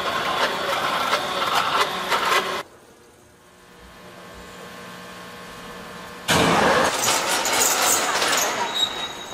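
Industrial machinery noise in a heat-treatment furnace shop: a dense din with clatter that cuts off abruptly about two and a half seconds in, leaving a faint steady hum that slowly rises. About six seconds in, the loud din returns just as suddenly.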